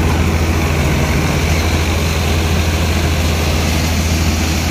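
Tractor-mounted multicrop thresher running steadily, driven by a Sonalika DI-60 tractor, while crop plants are fed into it: a loud, steady low drone with the rushing of the threshing machinery.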